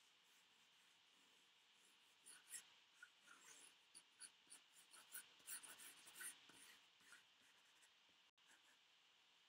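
Pencil sketching on paper: a faint run of short, scratchy strokes, starting about two seconds in and stopping about seven seconds in.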